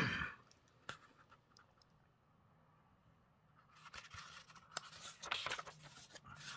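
Pages of a hardback book being turned by hand: soft paper rustling and brushing in several short bursts in the second half, with a few faint clicks before them.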